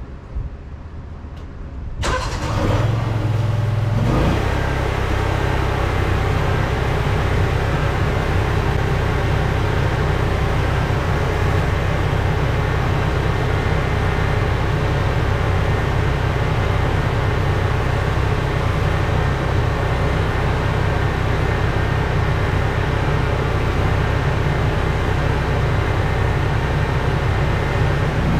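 Pressure washer engine starting about two seconds in, then running steadily at a constant speed with a wide hiss over its low rumble.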